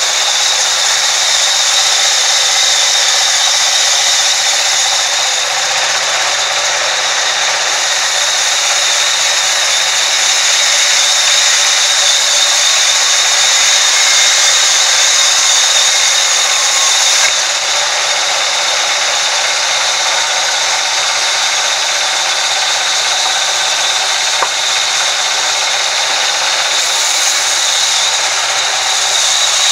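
Sawmill band saw ripping lengthwise through a large log: a loud, steady rush of the blade cutting wood, with a high whine held over it.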